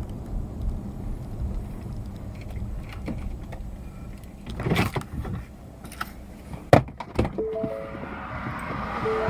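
Steady low rumble of a stopped vehicle, with a few knocks a little before the middle and two sharp bangs about seven seconds in, the loudest sounds here. Short beeping tones at a few pitches follow the bangs.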